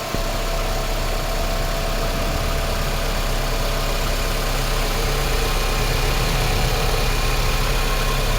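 Engine of a freshly tuned-up 2005 Toyota Camry idling steadily.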